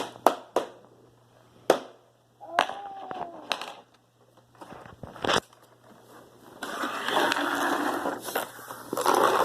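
Small plastic toy pieces clicking and knocking a few times, then a dense crackling of a toy wrapper being crumpled and torn open over the last few seconds.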